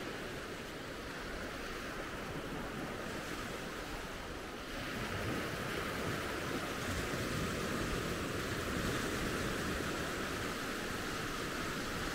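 Small surf waves washing in on a sandy beach, a steady rush that gets louder about five seconds in.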